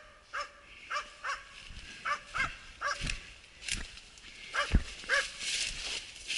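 Hunting dogs barking in short, repeated yelps, about a dozen spread irregularly, some in quick pairs: hounds giving voice as they work through the cover in the drive.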